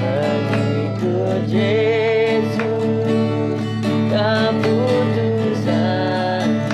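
A man singing a slow worship song with long held, wavering notes, accompanied by strummed acoustic guitar over steady sustained chords.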